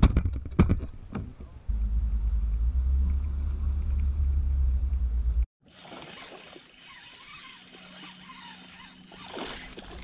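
Knocks on a fishing boat, then a steady low rumble that stops abruptly after about four seconds, followed by much quieter lapping water.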